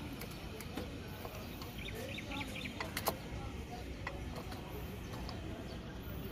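A few light metal clicks and taps as a screwdriver and fingers work the fasteners on an aircraft wheel's brake assembly: one right at the start, one a little under a second in, and a pair about three seconds in. A steady low rumble runs underneath.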